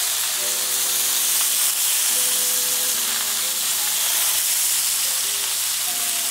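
Bone-in, skin-on chicken thighs frying in oil in cast iron skillets, a steady sizzle, as they are turned over with tongs. It is a gentle sizzle over medium-low heat, the slow render that crisps the skin.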